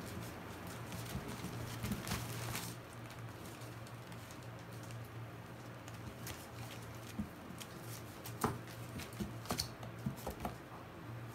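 Cane Corso puppies clambering on a plastic toddler slide: scattered light taps and scrabbling of claws on the plastic, with a few sharper clicks in the last few seconds, over a steady low hum.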